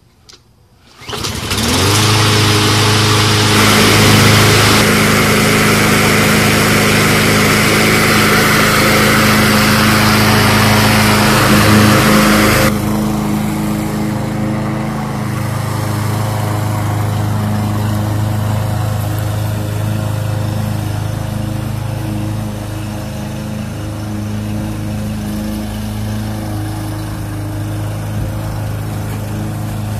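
Troy-Bilt TB200 walk-behind lawn mower's small engine catching on a pull of the recoil starter about a second in, then running steadily at full throttle. About 13 seconds in it becomes a little quieter and less hissy and runs on steadily.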